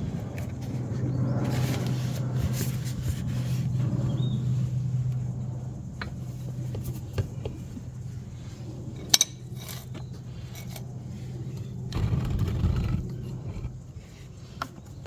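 Metal tools clinking and scraping during hands-on gearbox drain work, with one sharp click about nine seconds in, over a steady low hum.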